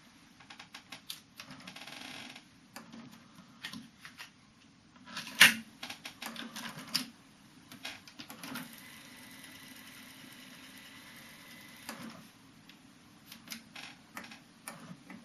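Aiwa GX-Z7100EV cassette deck's tape transport clicking and clunking as its controls are worked and the mechanism engages, with one loud clunk about five seconds in. It is followed by a steady whir for about three seconds, then more clicks.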